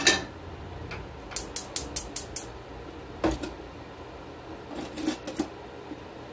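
A stainless steel sauté pan is set down on a gas range grate with a clank. A quick run of about seven light, sharp clicks follows, then a knock as a kitchen drawer is pulled open, with utensils clattering inside it.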